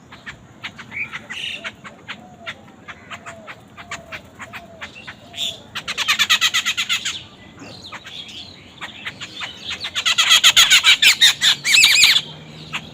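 Bird calls: scattered short chirps, then a fast chattering run of squawking notes about six seconds in, and a longer, louder run from about ten seconds in.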